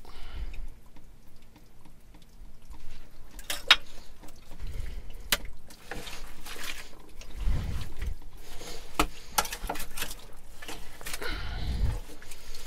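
Hand excavation of bottles from a privy pit: scattered clicks, knocks and scrapes of tools and glass in wet-sounding fill, one sharp click about a third of the way in, and low rumbles of handling now and then.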